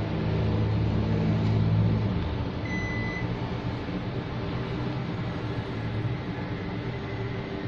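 Panasonic split air conditioner running with a steady hum and rush of air; a deep hum drops away about two seconds in, and a short beep sounds about a second later.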